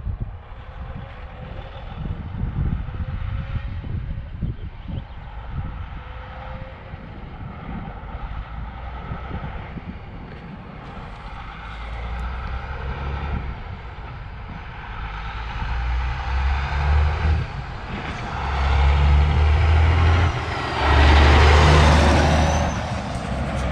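1998 Freightliner Classic XL semi tractor with a Caterpillar 3406E inline-six diesel approaching and driving past close by. The low engine note grows louder in steps with two short breaks, and the loudest moment is a burst of engine and air noise as the truck goes by near the end.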